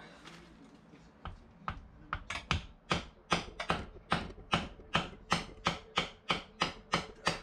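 A hammer taps a car drive shaft home into the gearbox in a steady run of sharp knocks. The knocks start sparse and settle to about two and a half a second.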